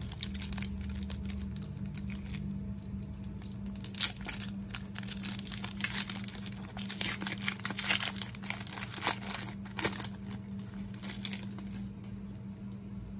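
The plastic wrapper of a football trading-card pack being torn open and crinkled by hand: a busy run of sharp crackles and rustles that thins out near the end.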